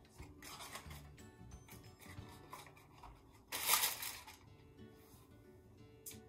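Cream cheese block's foil wrapper being torn and peeled open, crinkling and rustling in bursts, the loudest about three and a half seconds in. Soft background music underneath.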